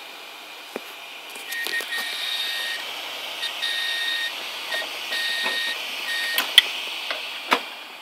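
Failed hard drives running with their covers off: a high-pitched tone beeps on and off in pulses of about half a second to a second, broken by sharp clicks, the loudest two near the end.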